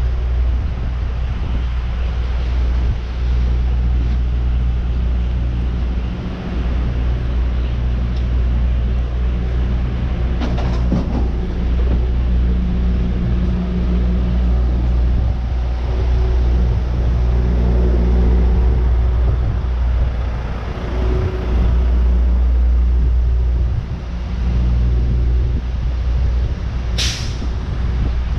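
Street traffic, with a vehicle engine running close by and a deep, steady rumble. A brief sharp hiss comes near the end.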